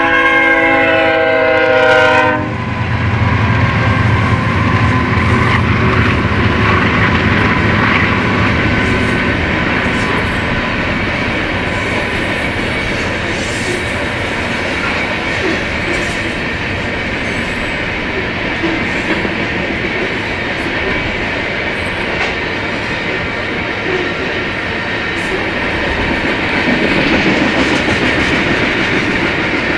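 BNSF freight train's locomotive horn sounding for about two seconds, then the train rumbling past and the covered hopper cars rolling by with steady wheel-on-rail clatter.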